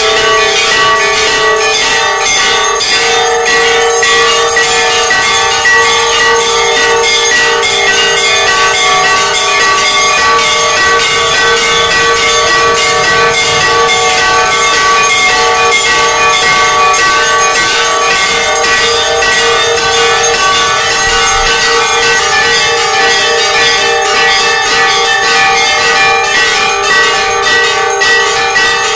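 Hindu temple bells rung for aarti: rapid, continuous clanging strikes over a steady metallic ring, loud throughout.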